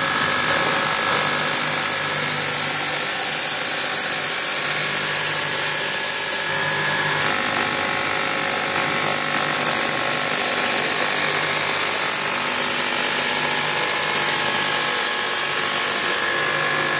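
Belt grinder running while a steel sword blade is held against the slack part of its abrasive belt to grind a convex edge: a steady grinding hiss over the motor's hum. The hiss gets sharper for a few seconds about six seconds in, and again near the end.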